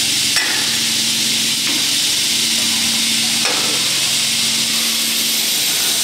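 Automatic corner-connector cutting saw running in its automatic cycle: a loud steady hiss over a low hum, with three sharp clicks in the first three and a half seconds.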